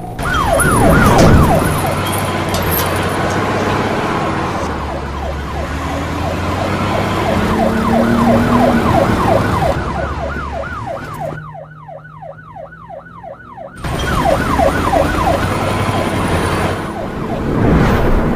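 A siren wailing in fast rising-and-falling sweeps, about four a second, over a dense, noisy background. The background drops out for a couple of seconds about two-thirds of the way through, leaving the siren on its own.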